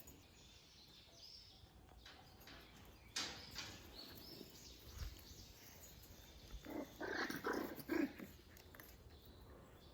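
Puppies making short noisy dog sounds in a few quick bursts, the loudest cluster a little past the middle.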